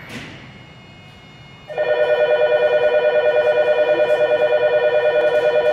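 Station platform departure bell: a loud, rapidly pulsing electronic ringing that starts abruptly about two seconds in and keeps ringing, signalling that the train's doors are closing for departure.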